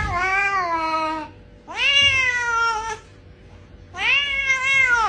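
Domestic cat meowing three times in long, drawn-out calls, each rising and then falling in pitch.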